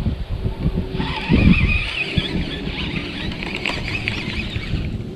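Baitcasting reel whirring as its handle is cranked, winding line in, over low handling rumble.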